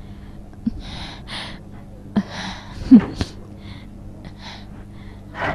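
A person's gasping breaths, about a dozen short breaths in a row, with a steady low hum behind them.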